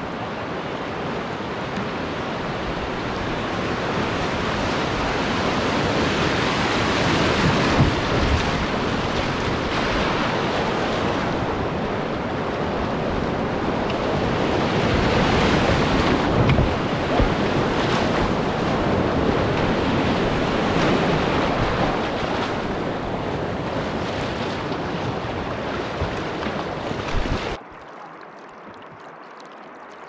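Whitewater rapids rushing and splashing loudly around a canoe, heard from water level. The rush swells toward the middle, with a few short knocks, then drops off abruptly near the end.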